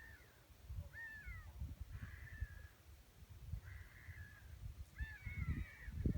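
Gulls calling: a series of drawn-out cries that bend up and down in pitch, about one a second, with two or more birds overlapping near the end.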